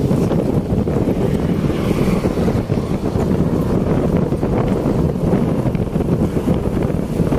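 Wind rushing over the microphone of a camera on a moving bicycle: a steady, loud low rumble.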